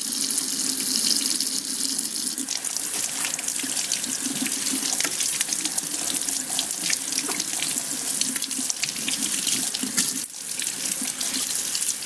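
Tap water running steadily into a sink as the coffee machine's removable plastic parts are rinsed under it, with small splashes and clicks. The flow sound drops briefly a little after ten seconds in.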